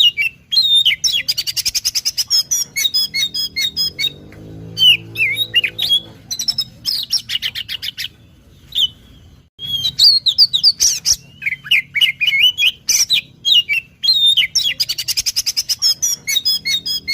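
Oriental magpie-robin (kacer) singing loudly in long, varied phrases of slurred whistles, fast rattling trills and harsh squawky notes. The song breaks off briefly about halfway through, then resumes. This is a kacer lure song, the kind played to draw out or train other kacers.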